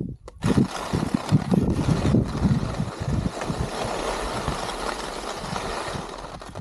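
Skis sliding over packed snow with wind buffeting the microphone, starting about half a second in and running as a steady rushing noise with uneven low rumble.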